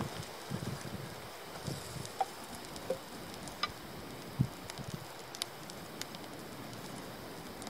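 A small fire of split kindling crackling as it catches, with scattered sharp pops and a few light knocks as sticks are laid on it.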